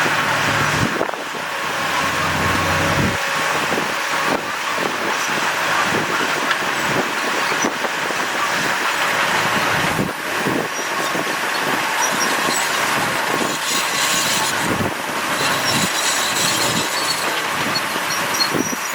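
Crawler bulldozer working: its diesel engine runs under a steady grinding, metallic noise with many short clanks, and a low engine hum stands out in the first few seconds.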